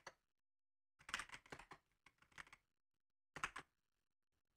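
Faint computer keyboard typing: three short runs of keystrokes, the first and longest about a second in, then two briefer ones.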